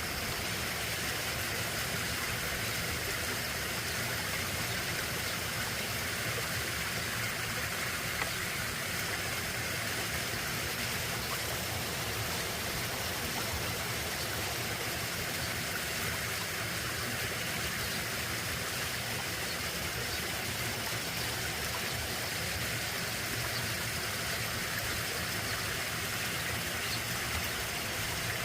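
Brook water running steadily, an even rushing sound with no breaks.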